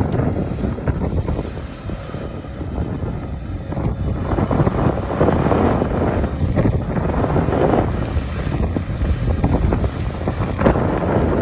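Excavator running and digging into rock: a steady low engine rumble with repeated swells of scraping and a few knocks, and wind on the microphone.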